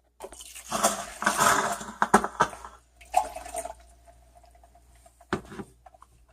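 A cup of water poured into a Mr. Coffee coffee maker's water reservoir, splashing for about two and a half seconds, followed by a few light knocks as the cup and lid are handled.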